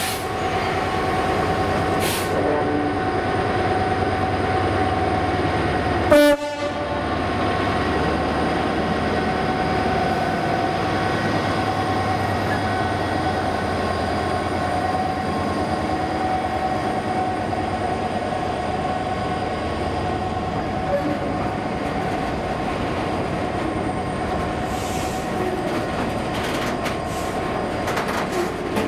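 Class 66 diesel locomotive with its EMD 710 two-stroke engine running under power as it passes close by, with a steady drone and a whine, followed by the rumble of loaded ballast hopper wagons rolling past. A short, very loud burst comes about six seconds in and stops suddenly.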